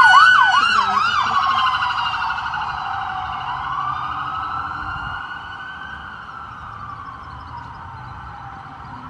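Emergency vehicle siren: a fast yelp that switches about a second in to a slow rising and falling wail, growing steadily fainter as the vehicle moves away.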